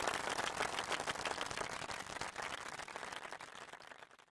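Audience applauding, the clapping slowly dying away and fading out near the end.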